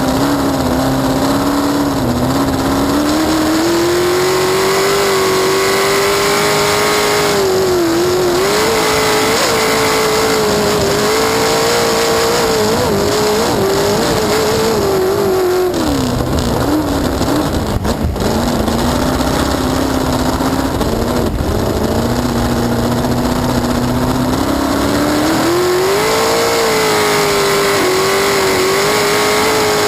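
Cracker box race boat's engine running hard, loud and continuous. Its pitch climbs in the first few seconds, holds high, drops back for several seconds in the middle, then climbs again near the end.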